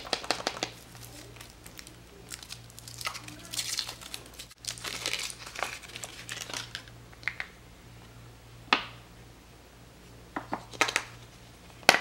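Thin foil wrapper crinkling and tearing as it is peeled off a hollow chocolate egg, then a few sharp snaps in the second half as the chocolate shell is cracked apart by hand.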